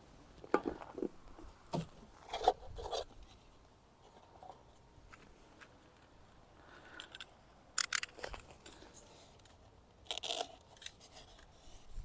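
Handling noises from small plastic mating nucleus hives being opened and fed: scattered clicks, scrapes and crunches in several clusters.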